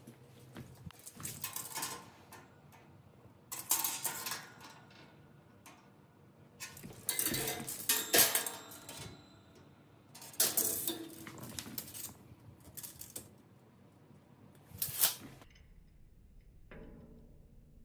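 Light metal clattering and scraping in about five separate bursts, from a tape measure and the rotisserie grill's steel grate being handled.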